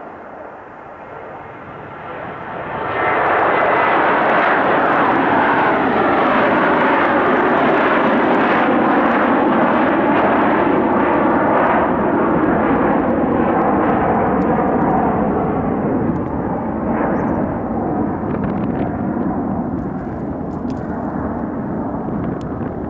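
Boeing 727-200's JT8D turbofan engines at takeoff power: the jet roar rises sharply about three seconds in, carries a whine that slides down in pitch as the plane goes by, and eases off slowly over the last several seconds.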